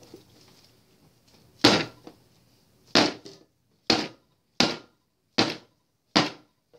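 Loaf mould full of freshly poured cold-process soap banged down on the work surface: six knocks, starting about a second and a half in and coming less than a second apart, the first the loudest. The banging works air bubbles out of the soap batter and evens it out in the mould.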